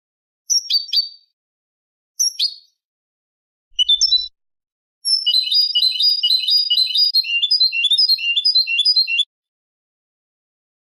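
European goldfinch song: a few short separate call notes in the first four seconds, then a fast twittering run of quick repeated notes lasting about four seconds, which stops abruptly into silence.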